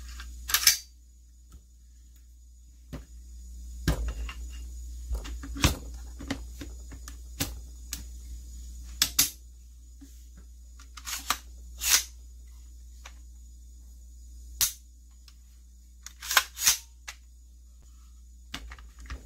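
Sharp metallic clicks and clacks, about a dozen at uneven intervals with a few quick doubles, from the parts of a Smith & Wesson M&P15 Sport II AR-15 rifle being fitted together: the charging handle and bolt carrier sliding home in the upper receiver and the upper closing onto the lower.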